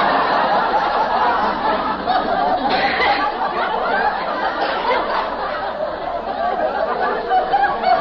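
Studio audience laughing in a long, continuous wave, heard on an old radio transcription with dull, muffled highs.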